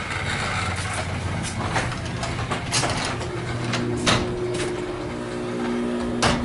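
LiftMaster 8500 jackshaft opener running a sectional garage door along its track: a steady motor hum with a few sharp clacks from the door, stopping near the end.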